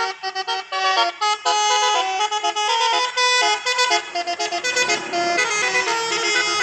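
Indonesian bus 'telolet' horn, a multi-tone musical air horn, tooting a quick melody of short notes in rapid succession with brief breaks between phrases. A low rumble joins in near the end.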